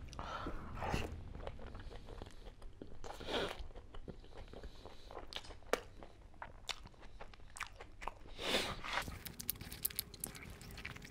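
Close-up chewing with wet mouth clicks and smacks as a man eats curry-coated boiled eggs by hand.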